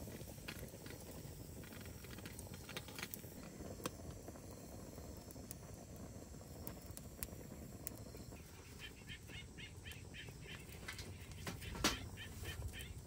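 Outdoor ambience of a steady low rumble with scattered small clicks and crackles. Past the middle, a bird calls in a quick run of repeated notes, about four a second, breaks off briefly, then repeats near the end.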